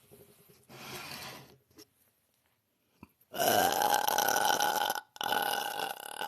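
A woman belching: a softer sound about a second in, then a long, loud burp from about three seconds in that breaks off for a moment and carries on for another second.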